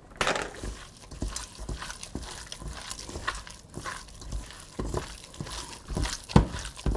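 Gloved hand kneading thinly sliced raw pork shoulder into its marinade in a stainless steel bowl: irregular wet squishing strokes, the loudest near the end.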